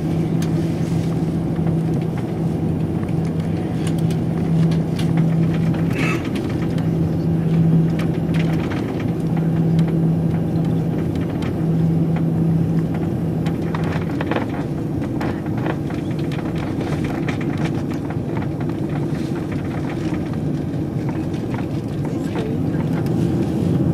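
Airbus A340-300 cabin noise while taxiing: a steady low rumble of the engines and airflow heard inside the cabin. A low hum drops out now and then and fades about halfway through, and a few faint knocks come through. The level stays even, with no takeoff power yet.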